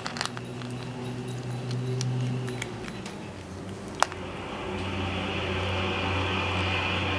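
A steady low machine hum that drops in pitch about two and a half seconds in, with scattered light clicks and one sharp click about four seconds in.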